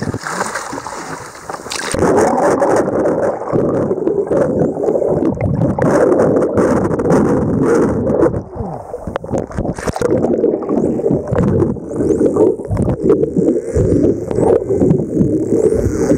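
Muffled rush of water over a camera held just under the sea surface, with scattered clicks and knocks. It starts about two seconds in, when the camera goes under.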